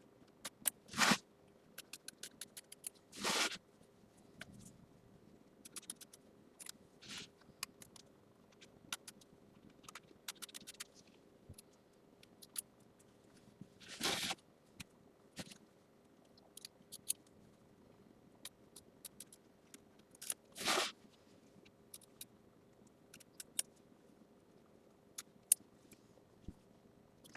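Scissors snipping away excess fabric close to the embroidery stitching: scattered small snips and clicks, a few of them louder, over a faint steady hum.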